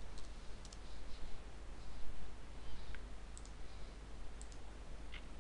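A few faint computer mouse clicks and keyboard key taps, some in quick pairs, over a steady low hum and hiss.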